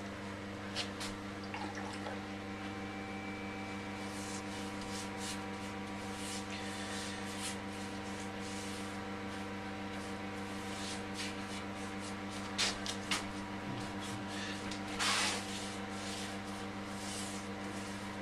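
A bristle brush working wet sizey white, a rabbit skin glue and chalk size, onto a bare wooden picture frame: soft, irregular wet strokes and dabs, a few louder ones about two-thirds of the way through. A steady electrical hum runs underneath.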